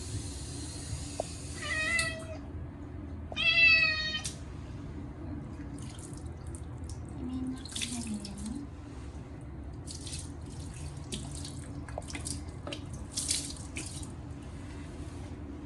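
Munchkin cat meowing loudly twice in the first few seconds, the second call the louder, in protest at being bathed. Running water and scattered splashing continue underneath and after the calls.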